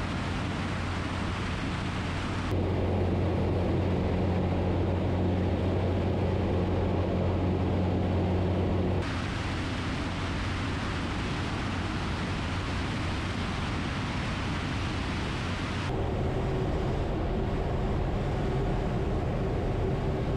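Zenith CH 750 Cruzer light aircraft in flight: a steady low engine and propeller drone with wind rush over it. Its level and tone shift abruptly three times, about two and a half seconds in, near the middle and about three-quarters of the way through.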